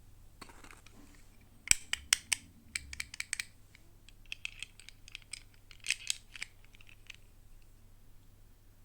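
Toy packaging being handled and opened: a run of sharp clicks and crinkles starting a couple of seconds in, with the loudest ones near the start of the run and again around six seconds in.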